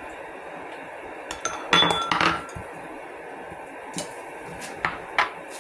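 Stainless steel pot lid and chopsticks clinking against a steel cooking pot: a cluster of sharp clanks with a short metallic ring about two seconds in, then a few lighter clicks near the end, over a steady hiss.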